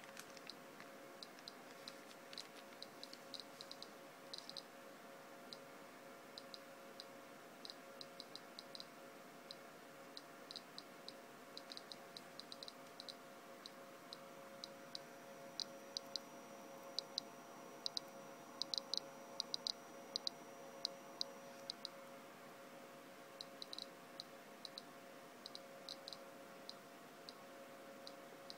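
bGeigie Nano Geiger counter clicking at random intervals, one short high click for each detected count. The clicks come more often and louder from about halfway through as the counter picks up the radiation from a sample of autunite uranium ore.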